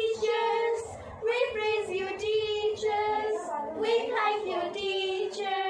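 Two young girls singing together without accompaniment, a slow melody with long held notes.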